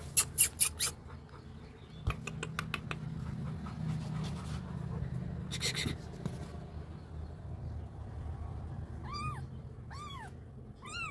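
Very young kitten mewing: three thin, high cries that rise and fall, about one a second, in the last few seconds. Earlier, a quick run of sharp clicks near the start and another around two seconds in, over a low steady hum.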